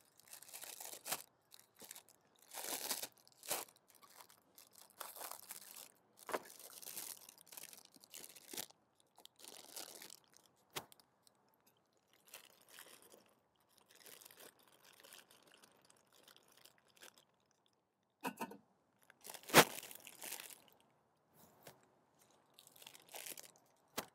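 Plastic bag of green beans rustling and crinkling in irregular bursts as it is handled, with one sharp knock a few seconds before the end.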